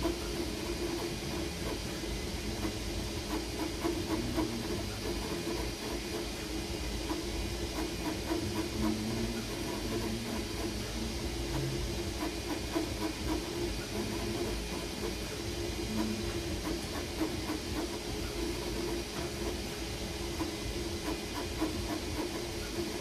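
Creality Ender-3 V3 KE 3D printer running a print: a steady hum and hiss from its cooling fans, with faint short blips from the moving motors.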